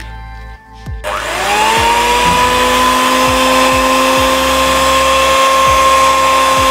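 Philips HR3705/10 300-watt hand mixer switched on about a second in. Its motor whine rises quickly and then runs steady while the dough hooks churn wheat flour and water into chapati dough.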